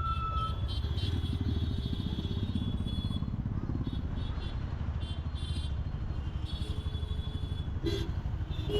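Motorcycle engine running steadily while riding, with fast pulsing low engine noise, a brief high tone at the start and a short sharp sound near the end.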